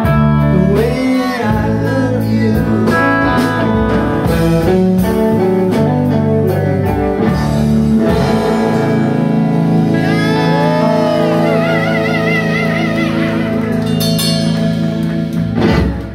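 Live rock band playing: electric guitars over drums and bass, with drum hits clear in the first half and a high held note wavering in pitch from about ten seconds in.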